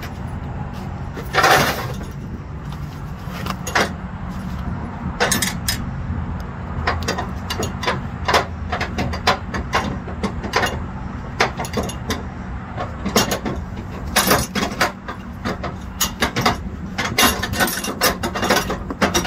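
Webbing strap and metal hardware at a flatbed trailer's strap winch being handled, clinking and rattling in short irregular clicks, with one louder rustling burst near the start. Under it runs the steady low hum of a truck engine.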